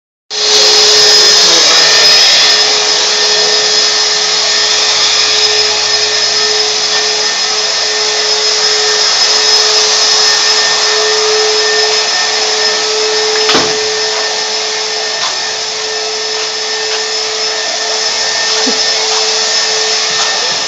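Shop vacuum running steadily: a loud motor whine over a strong rush of air. A single sharp knock about two-thirds of the way through.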